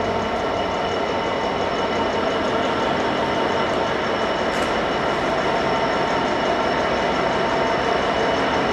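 A Class 66 diesel locomotive's engine runs steadily as the train draws slowly nearer, growing gradually louder.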